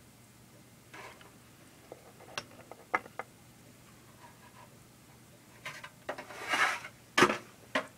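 Light clicks and taps of a small die-cast metal model airliner being handled and set down on a desk. Near the end come a brief rustle and two sharper knocks.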